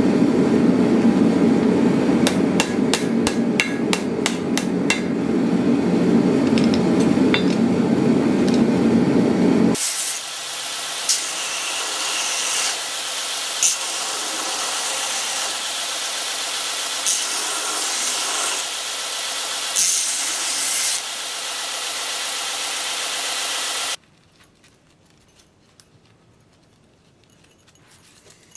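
A hand hammer strikes hot steel on an anvil in a quick run of blows over a steady low roar. After about ten seconds a belt grinder takes over: a steady high hiss of steel held against the belt that swells each time the steel bites. It stops a few seconds before the end, leaving only faint handling sounds.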